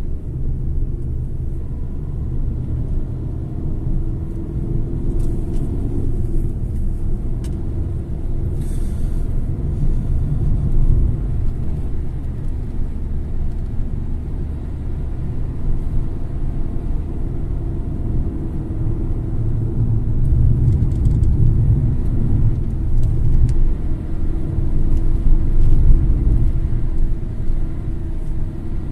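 A car driving along the road: a steady low rumble of tyres and engine, swelling a little now and then.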